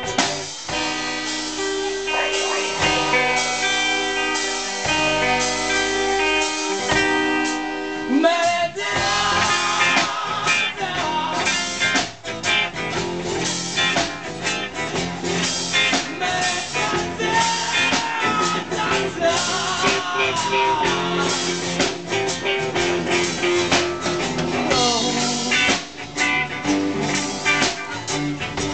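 Live blues-rock band playing: electric and acoustic guitars with a drum kit. The first seconds are mostly held guitar chords, and the drums and full band come in harder about eight seconds in.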